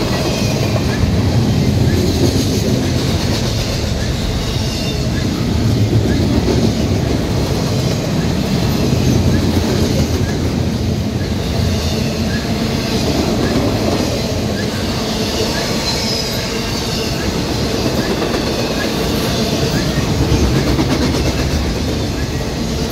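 Double-stack intermodal freight train's well cars rolling past close by: a steady loud rumble and clatter of steel wheels on the rails.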